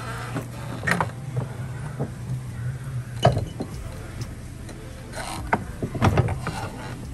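Hand tools working loose a car's drive-axle flange bolts: scattered metallic clicks and knocks of wrench and ratchet on metal, the sharpest about three seconds in, over a steady low hum.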